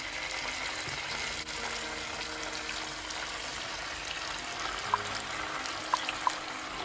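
Salmon steaks frying in hot oil in a pan: a steady sizzle, with a few sharp oil pops near the end.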